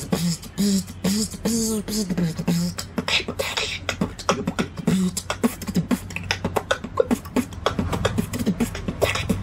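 Solo beatboxing: a hummed bass melody for the first couple of seconds, then a fast run of vocal kick drums, snares and clicks.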